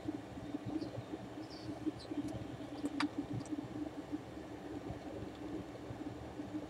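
A steady low background rumble, with a few faint small clicks and one sharper click about three seconds in.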